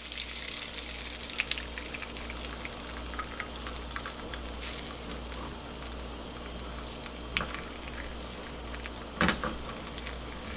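Beaten egg sizzling in hot melted margarine in a nonstick egg-roll pan, a steady frying hiss. A silicone spatula stirring the egg knocks against the pan a few times, most clearly about seven and nine seconds in.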